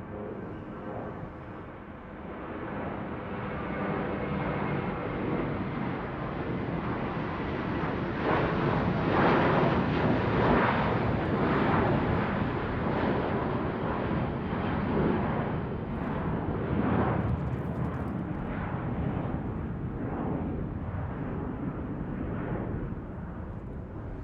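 Airplane passing overhead: a broad rumble that builds to its loudest about ten seconds in, then slowly fades.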